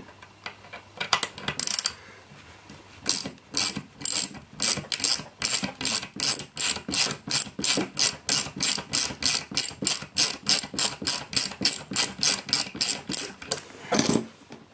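Ratcheting hand tool clicking steadily, about three clicks a second, as a hex standoff is unscrewed from a circuit board; a single louder knock near the end.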